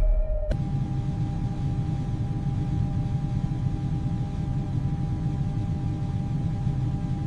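Steady low rumbling drone with a faint high tone held above it, starting abruptly about half a second in.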